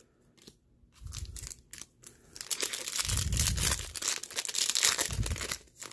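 Foil wrapper of a Yu-Gi-Oh! Speed Duel booster pack crinkling and tearing open in the hands. It starts softly after about a second and gets denser and louder, with a few dull thuds of handling partway through.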